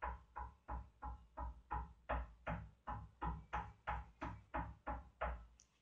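Fine-liner pen shading a small square on graph paper with quick back-and-forth strokes, about three a second, stopping shortly before the end.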